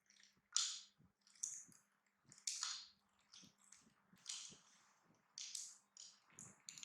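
A pet chewing crunchy snacks: irregular short crunches, about one a second, with small clicks between.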